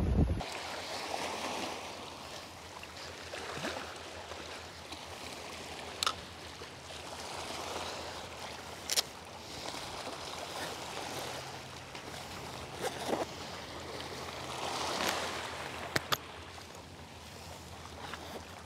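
Small sea waves lapping and washing around rocks in shallow water, swelling briefly near the end. A handful of short, sharp clicks and taps are scattered through it.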